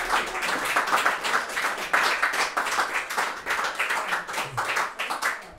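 Small audience clapping after a song, dense applause that dies away near the end.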